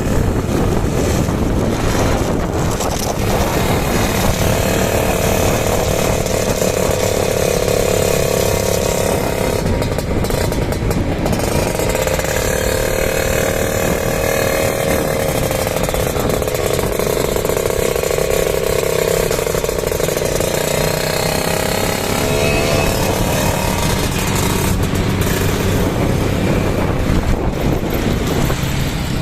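Kawasaki Ninja two-stroke engine running, its revs held up twice with a wavering pitch and dropping back in between and again near the end. It has a rough, snoring carburettor note, the sign of a dead KIPS power valve and a carburettor that needs sorting.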